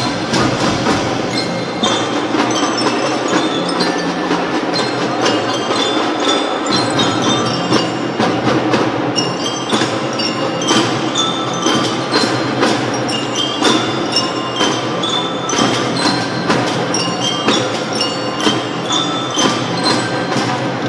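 Marching drum band playing: ringing metal mallet bells carry the melody over a steady stream of drum strokes.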